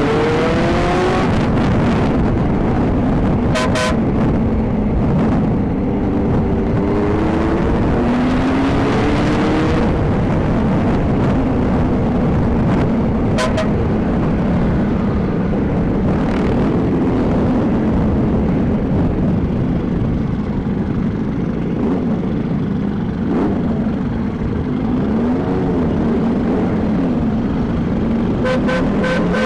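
Motorcycle engine running under a steady rush of noise, its pitch rising several times as it accelerates through the gears, with a few short horn beeps.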